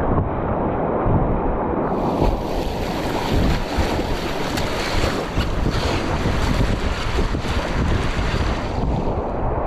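Whitewater rushing and splashing around a kayak on a steep creek, with wind noise on the microphone. About two seconds in the rush turns brighter and hissier, and near the end it goes duller again.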